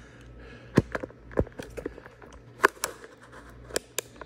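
Handling noise from a phone being fitted into a tripod mount, picked up by the phone's own microphone: irregular sharp clicks and knocks, about seven of them, over a low steady hum.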